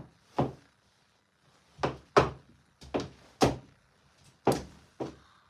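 Heavy footsteps on a hard floor: an irregular series of about eight thuds, the loudest about two seconds in and again about four and a half seconds in.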